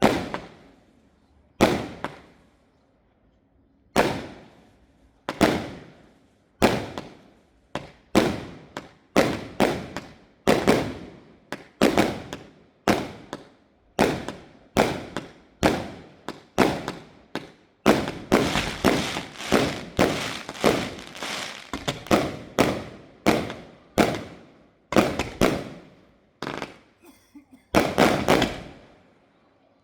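Fireworks display: a long series of sharp firework bangs, each with a fading echo. They come about a second apart at first, quicken into a dense, overlapping barrage past the middle, then thin out near the end.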